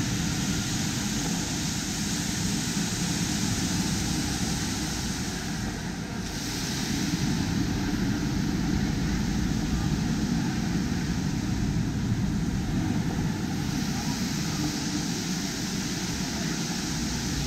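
Steady background noise: a low rumble under an even hiss, dipping briefly about six seconds in.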